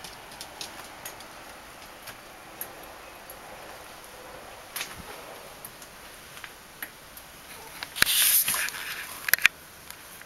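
Light ticks of a Bichon Frisé puppy's claws on a laminate floor. About eight seconds in comes a brief louder rustle, followed by a few sharp clicks.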